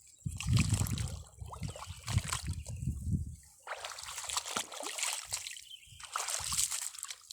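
Water sloshing and splashing in irregular bouts, with light crackling noises.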